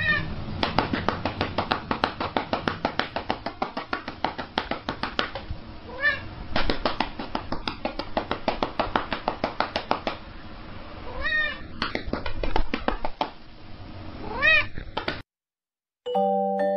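Domestic cat meowing several times over a fast run of rhythmic pats, about five a second, as it is patted on the back; the patting stops shortly before the end.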